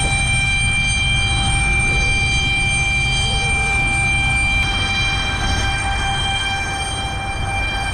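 Embraer ERJ-170's GE CF34-8E turbofan engines heard from inside the cabin: a steady whine of several even high tones over a low rumble, easing a little about five seconds in.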